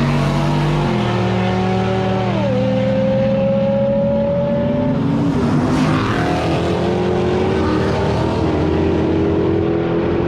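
Car engines running hard at high revs, with their notes holding steady and then dropping in pitch about two and a half seconds in, and again shortly before the end.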